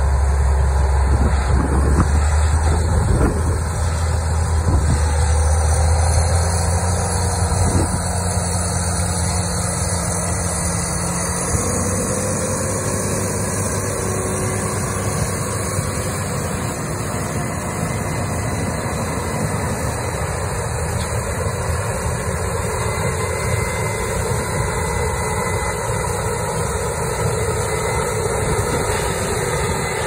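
Heavy farm machinery running steadily at harvest: the diesel engines of a tractor pulling a grain cart and a Case IH combine harvesting corn. A strong deep hum fades about six seconds in, and the tone of the machinery shifts near twelve seconds in.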